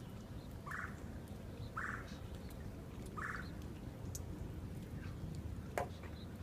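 A bird calling three times in short harsh calls over a low steady rumble, with one sharp click near the end.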